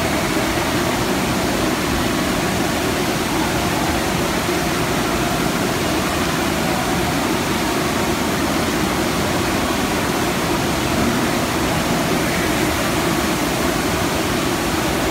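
Rushing water of an indoor surf simulator's sheet wave, a steady, unbroken rush of water pumped over the ride surface.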